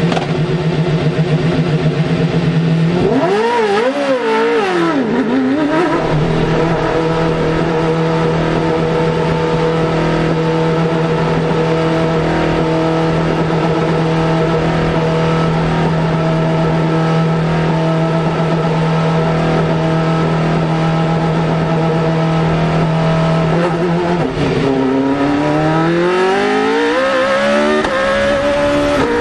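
Onboard sound of a Formula Renault 3.5 single-seater's race engine running at a steady pitch, with the revs rising and falling briefly about three seconds in as the car pulls away. The pitch then holds constant while the car rolls down the pit lane. About 24 seconds in it dips and climbs steadily as the car accelerates onto the track.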